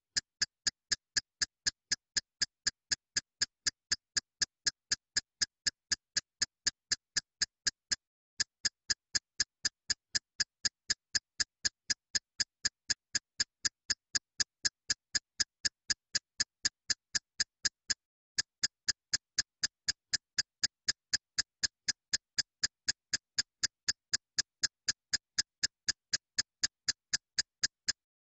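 Steady electronic ticking, about three short high clicks a second, like a looped clock-tick or metronome track, with a brief break about eight seconds in and again near eighteen seconds.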